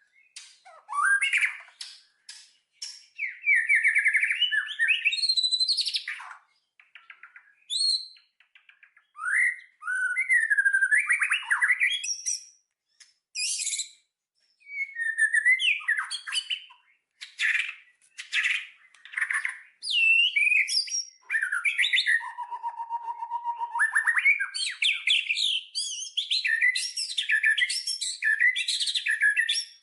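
A songbird singing a varied run of chirps, whistled pitch sweeps and rapid trills in separate phrases with short silences between them, and a steadier lower note about two-thirds of the way through.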